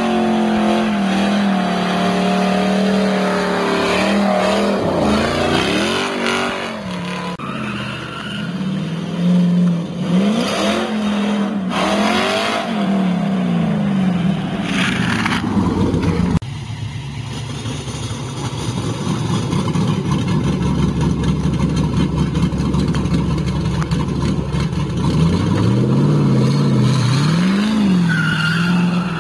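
LS-series V8 in a Datsun 280Z revving hard, its pitch rising and falling over and over as the car spins donuts with the rear tyres squealing. About halfway through the sound cuts abruptly to a steadier low engine drone, and the revs climb again near the end.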